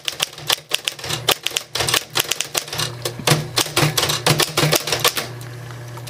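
Smith Corona Electra semi-electric portable typewriter typing, its electrically driven keys striking in a quick run of sharp clacks, several a second, over the steady low hum of its motor. The key strikes stop about five seconds in, leaving the hum.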